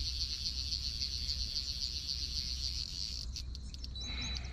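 Insects buzzing in a steady, high, pulsing chorus that cuts off suddenly about three seconds in, followed by a few short high chirps.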